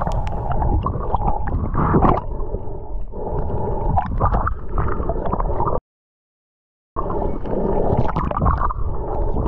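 Water gurgling and sloshing against an action camera's waterproof housing as it moves underwater and breaks the surface, with small bubbly clicks throughout. The sound cuts to complete silence for about a second some six seconds in, then resumes.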